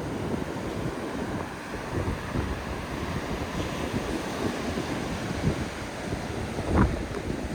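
Strong wind buffeting the phone's microphone over heavy sea surf breaking on the beach, a steady rough rush with irregular low gusts, one louder gust near the end.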